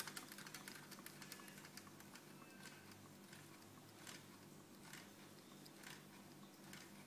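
Faint clicking and tapping from a homemade can-type Stirling engine running, its bent-wire crankshaft and flywheel turning. The clicks come thick at first, then settle into a light knock about once a second.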